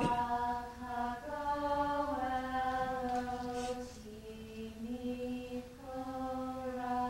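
Slow chant of long held sung notes, one melodic line moving up and down in small steps of pitch. A short click sounds right at the start.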